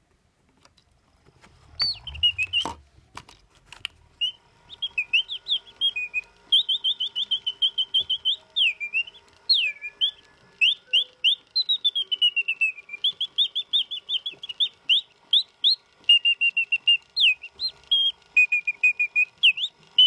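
Antique Juvenia key-wound singing bird automaton box, circa 1895, singing: a fast run of whistled trills and chirps that slide up and down in pitch, from its clockwork-driven bellows and sliding-piston whistle. A few sharp clicks of the mechanism come as it starts, about two seconds in.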